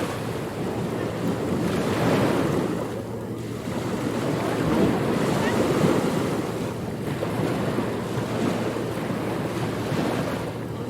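Ocean surf: waves breaking and washing in, swelling and easing every few seconds.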